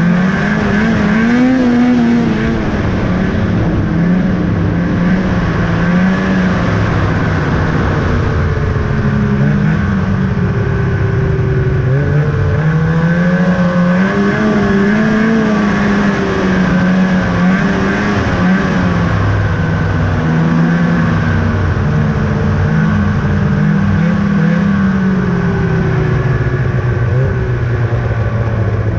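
2000 Ski-Doo Summit 800 snowmobile's twin-cylinder two-stroke engine running while riding, its pitch rising and falling every few seconds as the throttle is opened and eased, settling to a lower steady note near the end.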